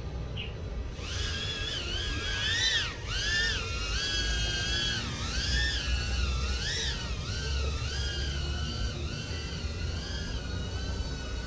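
BetaFPV Pavo20 cinewhoop drone's motors and four-bladed props whining. The sound starts about a second in, and its pitch rises and falls continually as the throttle changes.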